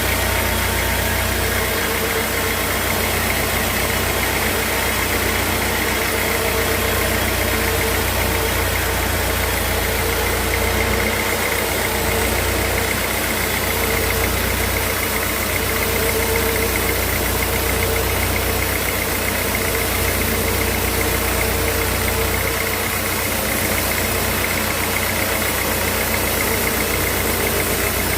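Sawmill machinery running steadily: a continuous engine-like hum with a steady whine and a low rumble that swells and dips a few times.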